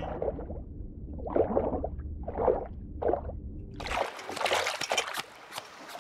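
Cartoon water sound effects: a muffled underwater rumble with a few bubbling blobs. About four seconds in it changes abruptly to a bright hiss of splashing and dripping water as a diver is pulled up out of the sea.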